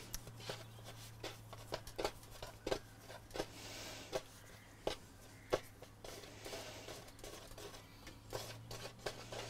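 Hands shaping bread-roll dough on a floured worktop: a run of irregular light taps and knocks as the dough is worked and pressed against the counter, over a steady low hum.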